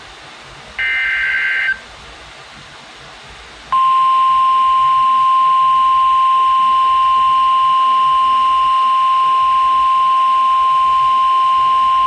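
Emergency Alert System header: a short burst of warbling digital data tones about a second in, then from about four seconds in the long, steady single-pitched alert tone that comes before a severe thunderstorm warning is read.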